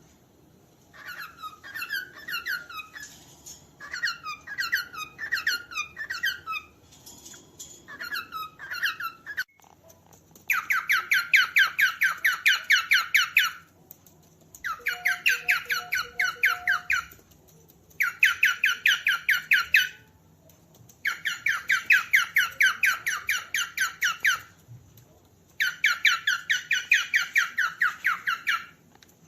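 Cockatiel calling. First come groups of short downward-gliding chirps, then five bursts of rapidly repeated notes, each burst two to three seconds long at about ten notes a second.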